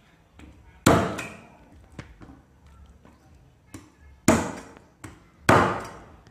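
Meat cleaver chopping pig trotters on a thick round wooden chopping block: three heavy strokes, one about a second in and two near the end, with a few lighter knocks between.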